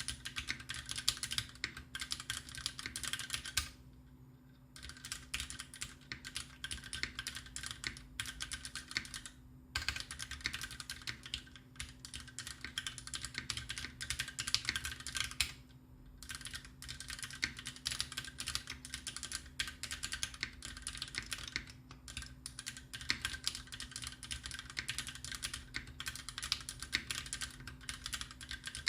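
Continuous fast typing on a Taichi TKL custom mechanical keyboard with lubricated Greetech Black linear switches and GMK Cherry-profile keycaps, with brief pauses about four, ten and sixteen seconds in.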